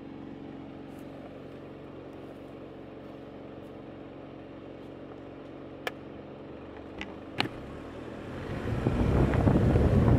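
A car engine idling with a steady hum, three sharp knocks in the middle, then from about two-thirds of the way in a rising rush of wind and road noise as the car gets moving.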